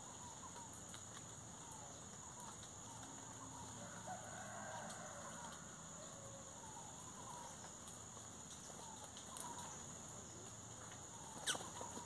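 Faint farmyard bird sounds: clucking and scattered short chirps and calls, over a steady high-pitched hiss, with one sharp tap near the end.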